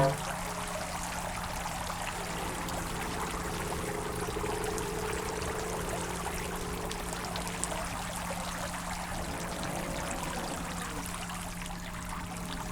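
Spring-fed stream water rushing and trickling steadily past a traditional wooden waterwheel, with a faint drawn-out squeak from the turning wheel in the first half.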